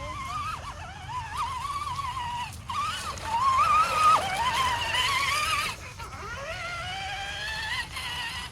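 Whine of the electric motor and drivetrain of a radio-controlled Axial Bomber rock crawler, sliding up and down in pitch as the throttle is worked. It is loudest a little before the middle, dips briefly about two thirds of the way in, then climbs again.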